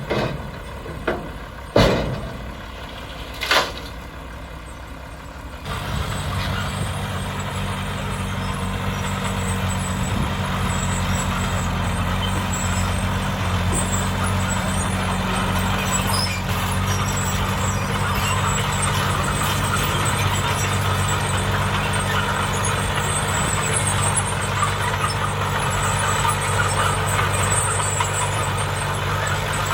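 Three sharp knocks, then about six seconds in a heavy diesel engine of earth-moving machinery comes in loud and runs steadily for the rest of the time.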